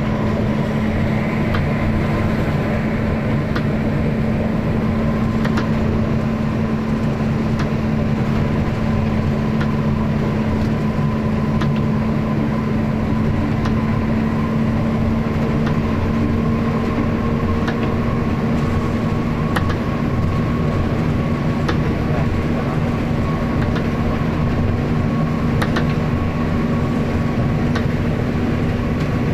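Bus engine and road noise heard from inside the cab while driving on a wet road: a steady drone with an even hum, and a faint tick about every two seconds.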